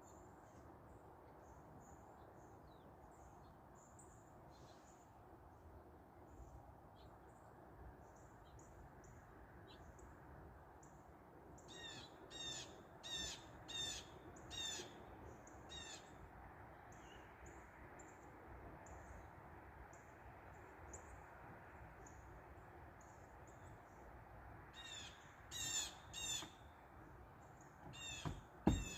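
Birds calling: faint high chirps throughout, with a louder bird giving a series of about six harsh repeated calls roughly twelve seconds in and more again near the end, over a low steady background rush. A short knock sounds near the end.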